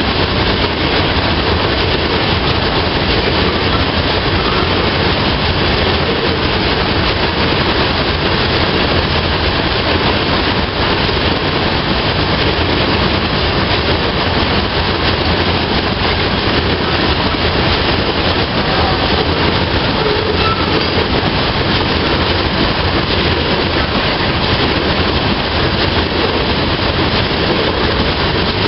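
Freight train of tank cars rolling past: a loud, steady rumble of steel wheels on the rails.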